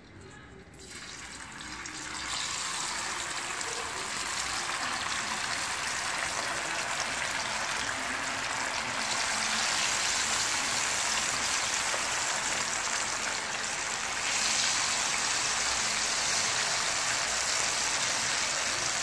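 Marinated chicken pieces deep-frying in hot oil, a steady sizzle. It starts about a second in and gets louder in steps, about halfway through and again a few seconds later, as more pieces are dropped in.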